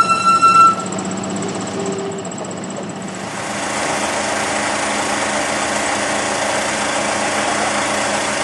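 The engine of a road-going replica steam-train vehicle idling steadily, growing louder about three seconds in. A few notes of music end within the first second.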